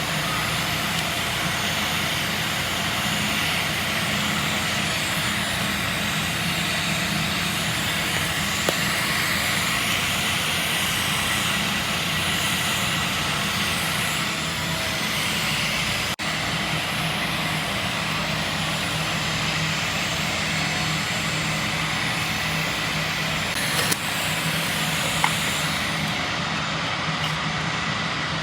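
TIG (argon) welding: a steady arc hiss and buzz over a constant electrical hum, briefly broken about 16 seconds in.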